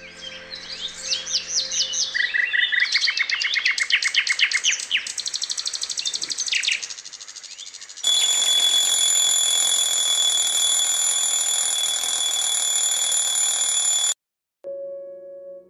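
Birds chirping and trilling in quick repeated phrases for about seven seconds. Then an electronic alarm rings loudly with one steady high-pitched tone for about six seconds and cuts off suddenly as it is switched off.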